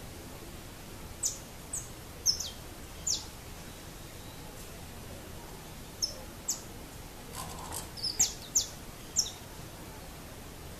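Saffron finch calling: short, high chirps, each dropping sharply in pitch. A few come in the first three seconds, then a quicker run in the second half, over a steady outdoor hiss.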